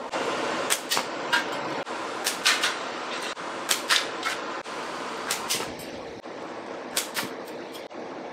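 Repeated slingshot shots from a natural-fork slingshot with flat rubber bands. Each is a sharp snap as the bands are released, followed a fraction of a second later by the ammo hitting the target or the rubber-pad backstop. About five such pairs come roughly a second and a half apart.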